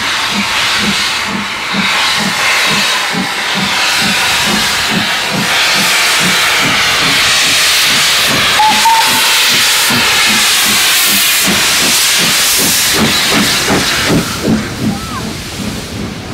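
SR S15 No. 506, a two-cylinder 4-6-0 steam locomotive, working a train with steady exhaust beats about two a second. Loud steam hiss runs over the beats and swells as the engine passes close, about halfway through; the beats grow stronger and less even near the end.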